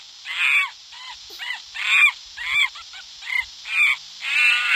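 Monkey calls played by the Animal 4D+ augmented-reality app: a run of about ten short, high calls that bend in pitch, roughly two a second.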